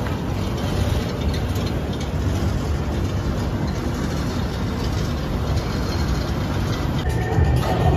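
Wind buffeting a handheld phone's microphone: a steady low rumble that rises and falls, with a haze of noise over it.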